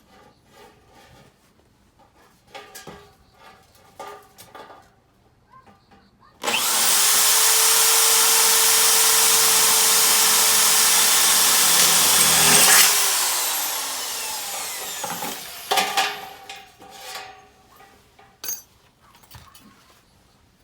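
A handheld power tool starts abruptly and runs at a steady speed for about six seconds, loud and hissing with a steady whine. It then winds down over a couple of seconds with a falling pitch. Scattered knocks and clatter of handling come before and after it.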